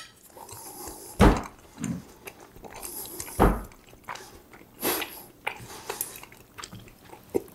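A person chewing a mouthful of food, with scattered short wet smacks and clicks about once a second.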